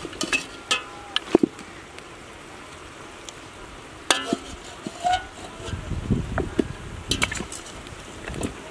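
A metal ladle stirring cow feet, bones and vegetables in a large metal stockpot, with irregular clinks and knocks of metal on metal now and then.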